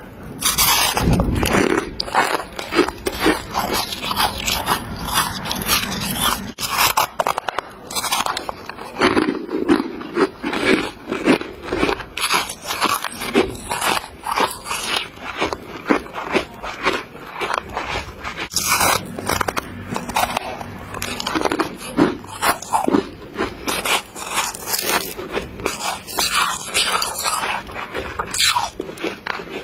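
Someone biting and chewing chunks of refrozen freezer frost close to the microphone: a rapid, crisp run of crunches with short pauses.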